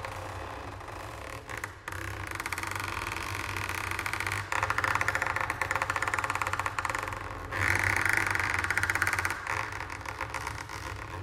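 Marimba played with mallets in a fast, dense stream of strokes, in several phrases separated by brief breaks, the loudest near the middle and about two thirds in.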